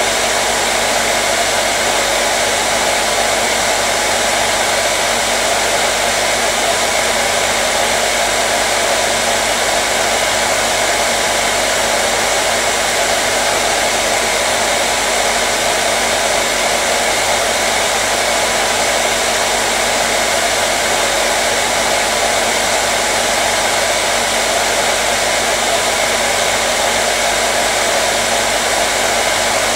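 Hair dryer running steadily: an even, unbroken blowing rush with a faint motor hum underneath.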